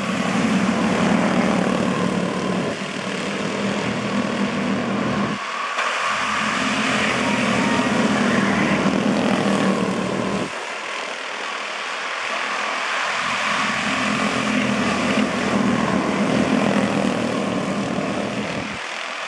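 Several Honda-powered quarter midget race cars running laps together, their engines making a steady buzzing drone that swells and fades as the pack passes, dropping back briefly about five and ten seconds in.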